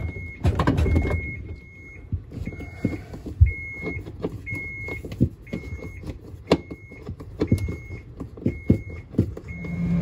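Clicks and knocks of a hand screwdriver and screws working into a refrigerator's plastic freezer back panel. Over them, a short high electronic beep repeats about once every second or less.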